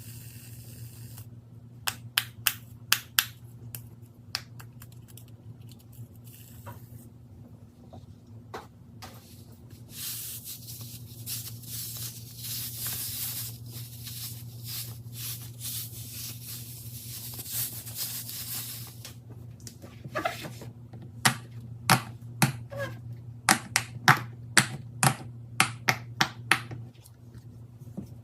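Fidget toys being handled: a few sharp pops about two seconds in, a long stretch of rustling in the middle, then a quick run of sharp clicking pops near the end.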